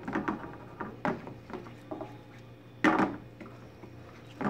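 A utensil scraping and knocking against a 12-inch skillet as eggs and spinach are stirred. There are a few separate strokes, the loudest about three seconds in, over a faint steady hum.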